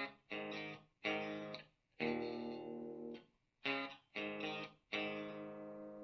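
Looped electric guitar chords played through a Marshall Origin 20 head in its middle power setting into a Mesa Engineering Recto 1x12 cabinet loaded with a Celestion Gold speaker. There are about seven chords, each cut off after up to a second with short gaps between them, and the last rings on and fades near the end.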